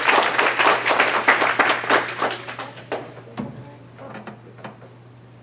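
Small audience applauding: dense clapping that thins out to a few last claps about four seconds in.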